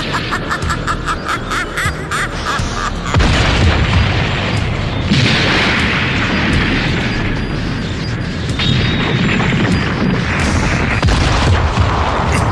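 Cartoon power-up sound effects: a wavering high tone with crackling for about the first three seconds, then a loud, steady low rumble of quaking ground and crumbling rock, with music underneath.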